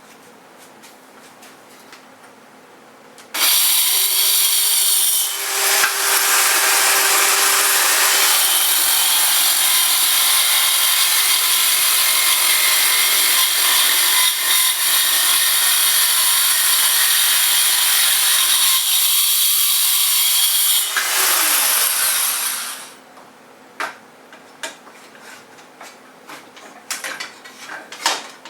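Black & Decker Matrix with its quick-connect circular saw attachment starts suddenly about three seconds in and runs loud for about seventeen seconds while crosscutting 3/4 inch plywood, then is switched off and spins down. A few light knocks and clicks follow near the end.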